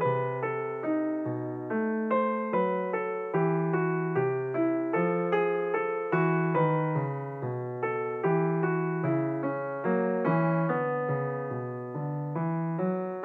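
Background piano music: notes struck at an even pace of about two a second, each fading before the next.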